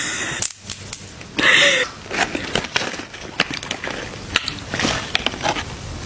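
Close-miked eating sounds: a person biting and chewing crunchy food, with many sharp crackling clicks and a louder crunch about a second and a half in.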